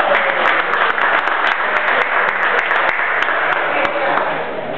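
Spectators applauding the end of a sumo bout, with voices mixed in, dying away near the end.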